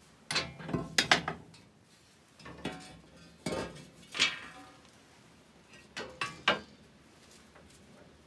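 Rusty cast-iron Singer sewing-machine treadle frames clanking and knocking against each other as they are pulled out of a pile by hand, in four groups of knocks, the first with several quick strikes.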